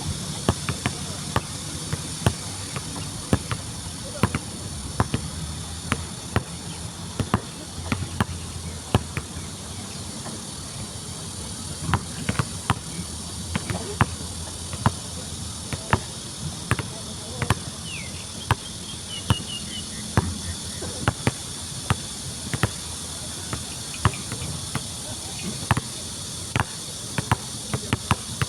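A basketball dribbled repeatedly on an outdoor court, a sharp bounce about once or twice a second with an uneven rhythm. Insects chirp in a steady, high-pitched chorus behind it.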